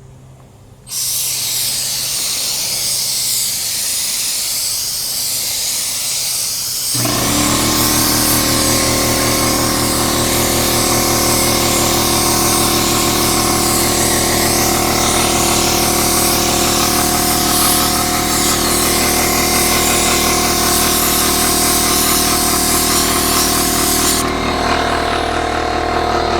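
Air paint spray gun hissing steadily as it sprays, starting about a second in and cutting off near the end. About seven seconds in, an air compressor kicks on and runs with a steady hum under the hiss, catching up on the air pressure that the gun draws down.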